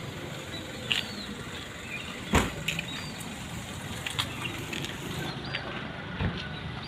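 Steady rumble of a passenger train in motion, with a few sharp knocks, the loudest about two and a half seconds in.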